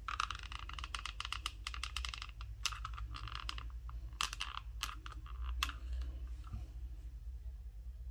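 Small handling clicks while a crocheted leaf is hot-glued onto a yarn tulip: a quick, irregular run of light clicks for about six seconds that thins out and stops near the end. A low steady hum runs underneath.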